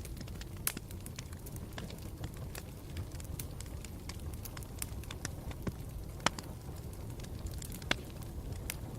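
Campfire crackling: a steady low rumble of burning wood with irregular sharp pops and snaps, the loudest about a second in, about six seconds in and near the end.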